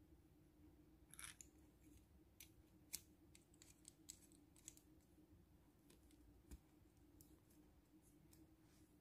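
Faint, scattered clicks and light taps of small hard plastic parts being handled, as a thumbscrew is pushed through a plastic camera mount adapter, with a short scrape a little after a second in and a soft thump about six and a half seconds in.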